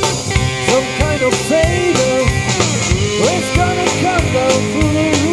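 A live rock band playing an instrumental passage: an electric guitar lead with gliding, bent notes over electric bass and a drum kit keeping a steady beat.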